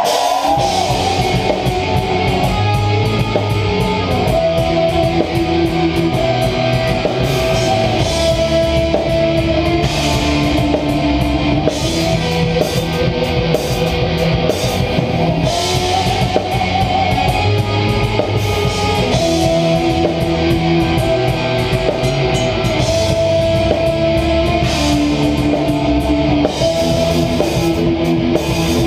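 Heavy metal band playing live: a repeating guitar riff over drum kit and cymbals.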